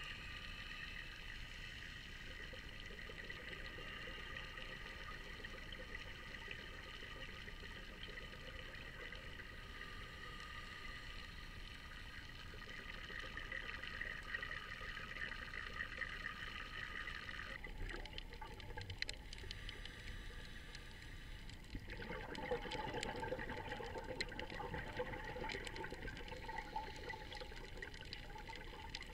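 Underwater ambience picked up through a sealed action-camera housing: a steady muffled watery hiss with faint crackling. The sound changes character twice in the second half, with more crackling toward the end.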